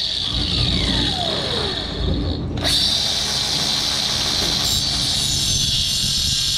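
Angle grinder with a cutoff wheel cutting into a steel part. Its pitch falls over the first two seconds as the motor slows, then after a brief dip about two and a half seconds in it speeds back up and runs steadily.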